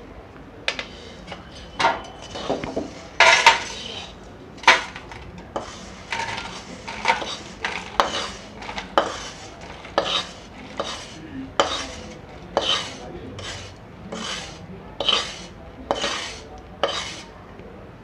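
Steel spatula scraping and clinking against a steel kadhai as a crumbly mixture is scraped out into a steel plate. The strokes are short and sharp and come at about one a second.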